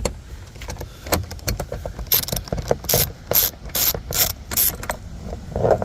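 Quarter-inch drive socket ratchet clicking as it loosens a 10mm door-panel bolt: light clicking at first, then about six loud rasping strokes in quick succession from about two seconds in.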